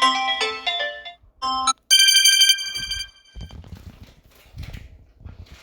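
Smartphone ringtone previews played one after another. A mallet-like marimba melody fades out about a second in, a short snippet of another tone follows, then a bright, high bell-like ringtone sounds for about a second and cuts off suddenly. Faint low handling noise follows.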